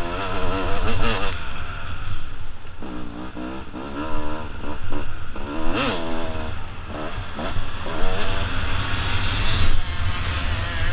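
1996 Kawasaki KX250 single-cylinder two-stroke motocross bike ridden hard on a dirt track, its engine revving up and down with each throttle change and gear shift, with one sharp rev peak and drop about six seconds in.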